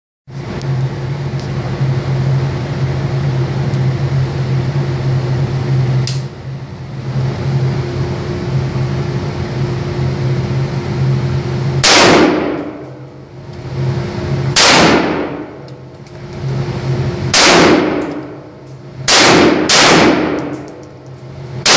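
Chinese Type 56 SKS, a 7.62×39 mm semi-automatic rifle, fired five times in an indoor range. Each shot rings out with a long echoing decay off the concrete walls. The shots start about halfway through and come a couple of seconds apart, the last two in quick succession. Before the shooting there is a steady hum.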